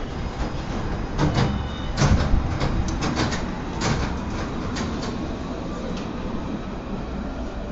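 A steady low rumble with a run of sharp clicks and knocks, the loudest about two seconds in, easing off over the last few seconds.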